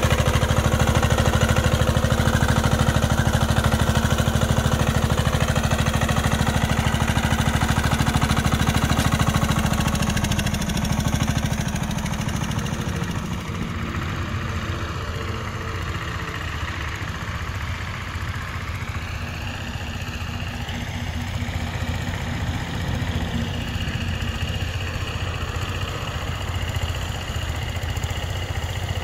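Engine of a Bungartz L5H single-axle walking tractor running steadily close by while it pulls a plough. About ten seconds in the sound drops and grows more distant, with a second walking tractor's engine running along with it.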